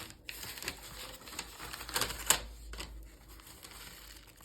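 Irregular light clicks and taps over a faint low hum, the loudest tap a little past two seconds in.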